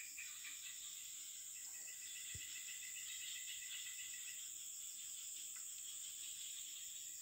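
Insects chirring in chorus: a steady high-pitched buzz with fast pulsing chirps beneath it. A faint low thump about two and a half seconds in.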